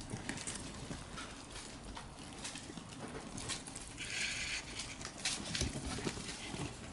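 A crowd of golden and kinkuma hamsters moving about on newspaper while they feed: scattered light ticks and scratches of claws on paper, with a longer rustle about four seconds in.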